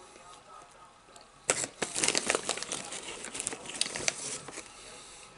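Plastic snack-chip bag crinkling as it is handled and rummaged for chips, a dense crackling that starts sharply about a second and a half in and lasts around three seconds.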